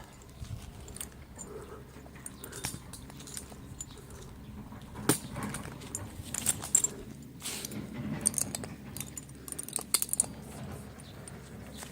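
Irregular light clinks and rustles, the strongest between about five and ten seconds in.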